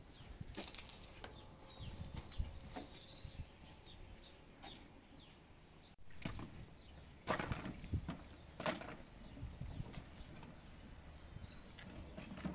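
Scattered footsteps and light knocks of things being handled on a dirt yard, more frequent in the second half, with a few faint bird chirps.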